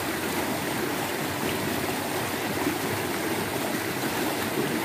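Shallow river running fast over rocks in small rapids: a steady, even rush of water.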